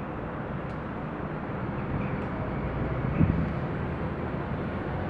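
Outdoor city background: a steady hum of distant traffic, with a single thump about three seconds in.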